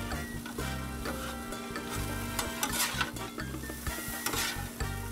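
Diced ribeye and onions sizzling on a Blackstone 22-inch griddle while two metal spatulas scrape and toss them, with repeated clicks and scrapes of the blades on the griddle top and two longer scraping swishes about three and four seconds in.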